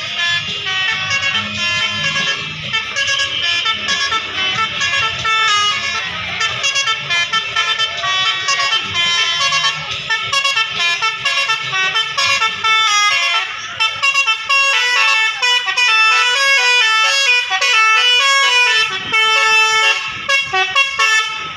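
A bus's Basuri 'telolet' musical horn playing a fast tune of short, stepping tones. A low engine hum underneath drops away a little over halfway through.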